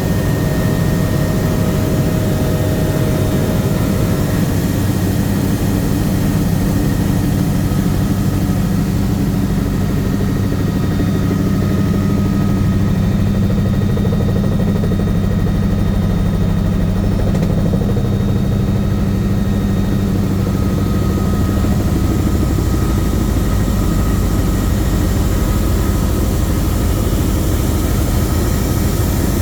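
Bell 505 Jet Ranger X helicopter in flight, heard from aboard: the steady low drone of the rotor and turboshaft engine, with a few faint steady whines above it.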